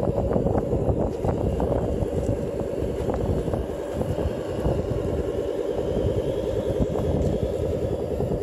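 Radio-controlled model three-axle dump truck driving over loose dirt and gravel: a steady, pulsing mechanical drone from its drive, with crunching and clicking of the tyres over stones, busiest in the first couple of seconds.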